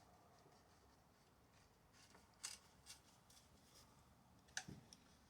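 Near silence with a few faint clicks, about two and a half and three seconds in, and a sharper click with a soft knock near the end: small parts or tools being handled.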